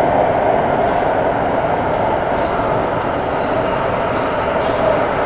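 Santiago Metro Line 6 AS-14 (Alstom Metropolis) train running at speed through a tunnel: steady rolling noise of wheels on rail with a steady hum.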